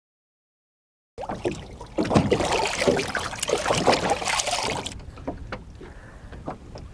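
After about a second of dead silence, water splashes at the side of a small boat as a released carp kicks free and swims off. About five seconds in, it gives way to fainter wind and lapping water.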